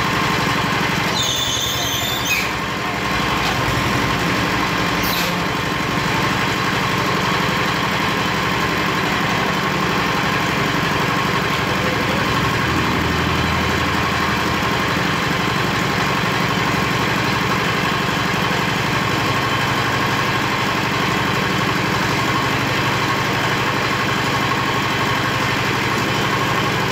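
Engine of a concrete-pour material hoist (lift cor) running steadily, with a brief high squeal in the first couple of seconds.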